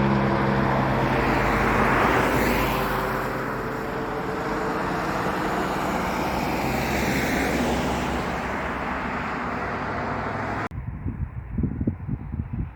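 Airliner's engines running as a broad, rushing roar, with a steady hum fading in the first second. Nearly eleven seconds in it cuts off abruptly to wind buffeting the microphone in low gusts.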